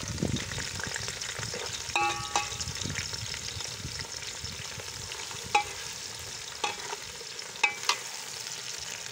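Sliced onions sizzling as they fry in hot oil in a large metal pot. A steel ladle stirs them and clinks sharply against the pot a few times.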